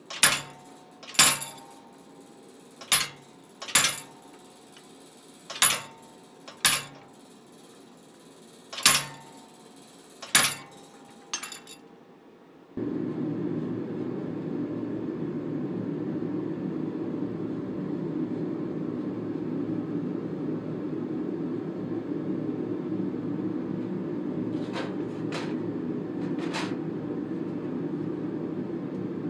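A hand hammer strikes a red-hot square steel bar on an anvil tool about ten times, in uneven pairs, each blow ringing. About halfway through the blows stop and a steady fan-like noise takes over, with a few light clicks near the end.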